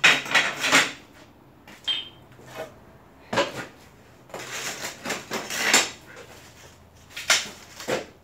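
Ceramic tiles clattering and clinking against each other as they are picked out of a stack and set down. There is a cluster of knocks at the start, another about three seconds in, a longer rattling scrape around five seconds in, and two more knocks near the end.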